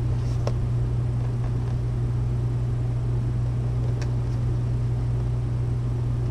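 Steady low machine hum filling the room, with a few faint clicks of cardboard toy boxes being handled, one about half a second in and another about four seconds in.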